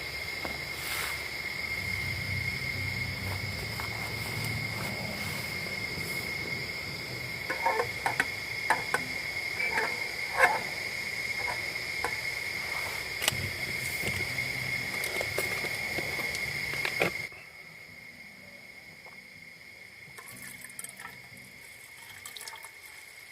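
Night insects chirring in a steady, high, continuous drone, with a few scattered clicks and knocks in the middle. It cuts off suddenly about seventeen seconds in, leaving a much fainter background.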